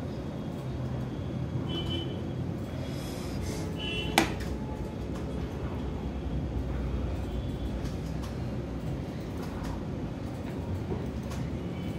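Steady low background rumble, with one sharp click about four seconds in.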